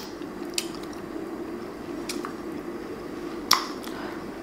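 Mouth sounds of someone eating saucy chicken with her fingers: a few short wet lip smacks and sucking clicks, the sharpest about three and a half seconds in, over a faint steady hum.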